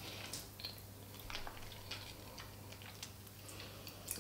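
A person chewing food with the mouth close to the microphone: faint, scattered wet clicks and smacks over a steady low hum.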